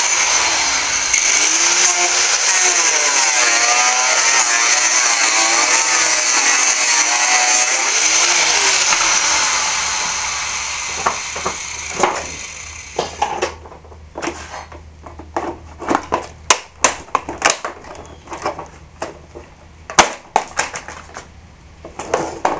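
Angle grinder with a grinding disc cutting through the plastic housing of a Kärcher pressure washer, its whine wavering up and down with the load, then fading as it winds down about ten seconds in. After that, a run of sharp knocks and plastic clatters as the cut casing is handled and pulled apart.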